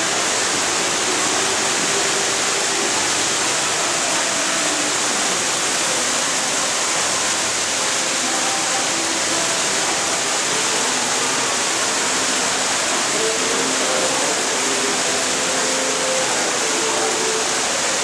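Small man-made rock waterfall splashing in a steady rush of falling water.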